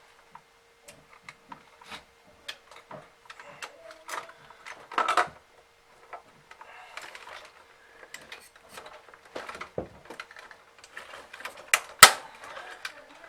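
Plastic parts of a vacuum cleaner being handled and fitted back together: scattered clicks and knocks, a brief rattle about five seconds in and a sharp knock near the end.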